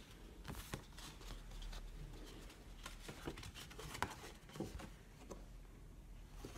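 Faint rustling and a few soft clicks and taps of glossy cardstock brochures being handled and lifted.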